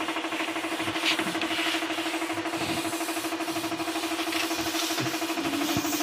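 Small single-cylinder air-cooled boat engine running steadily on a stand, a steady hum with a fast, even pulse. It has a leak, which the mechanic calls "singaw".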